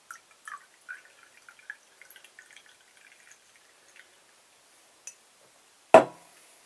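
Bottled pale ale being poured into a glass, with a run of small glugs and drips. A single sharp knock near the end.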